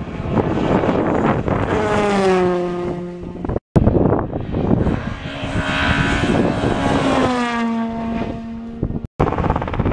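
Rally cars racing past at speed on a tarmac stage, engines at high revs. Twice the engine note falls as a car goes by, and each pass is cut off abruptly.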